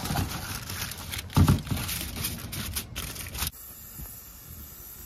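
Aluminium foil crinkling as it is handled and pressed onto a tray, an irregular papery crackle. It cuts off about three and a half seconds in, leaving only a faint low hum.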